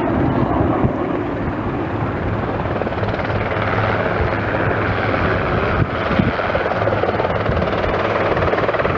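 Lockheed C-130H Hercules turboprops flying past, their four Allison T56 turboprop engines making a steady, loud drone. The higher part of the engine noise grows stronger from about three seconds in.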